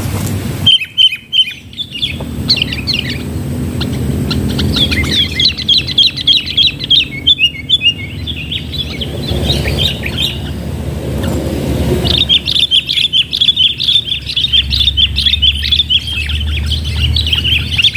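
Sooty-headed bulbuls giving rapid, scratchy chattering calls in long runs, a few short bursts early on building to a dense, unbroken chatter in the last six seconds, over a low background hum.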